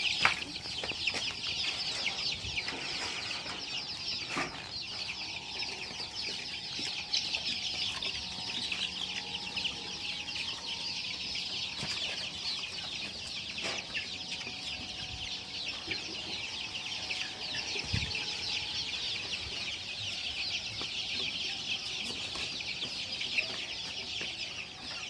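A flock of young chickens chirping continuously in a dense, high-pitched chorus of many overlapping calls, with an occasional knock.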